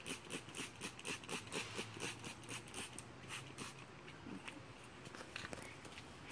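Plastic trigger spray bottle squirting in quick repeated pumps, a short hiss about four times a second, as it mists water with dish soap onto a car's glass window; the spraying stops a little under four seconds in.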